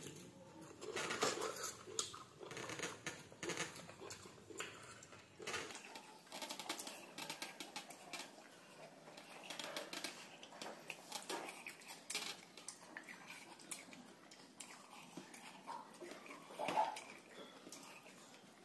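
Two people eating rice with their hands from steel plates: chewing and mouth noises with scattered light clicks and taps of fingers and food against the metal plates.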